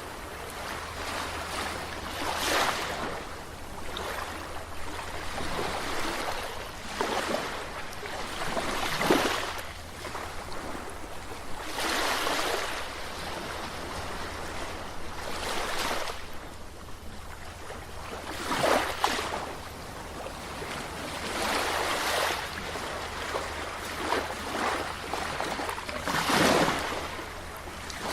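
Sea waves washing against the shore, a rushing noise that swells and fades irregularly every two to four seconds, over a steady low rumble.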